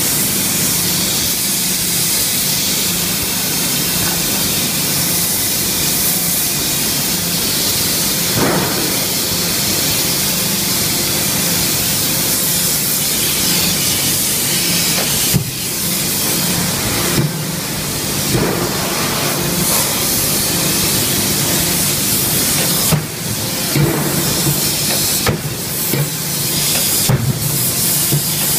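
DY5M electro-hydraulic die forging hammer striking a red-hot workpiece between its dies: one blow about halfway through, then a run of blows over the last few seconds, all over a steady loud hiss.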